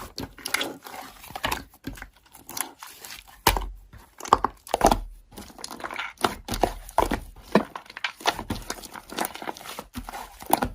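Slime being squished and poked by hand, giving irregular sticky crackles and small pops.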